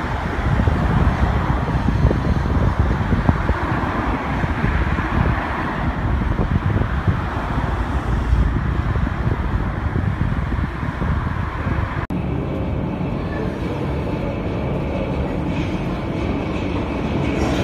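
A London Underground S Stock train rumbles along the track through an open-air station. After a sudden cut, a Budapest metro train approaches out of the tunnel into an underground station, and its running noise grows louder with a few steady tones.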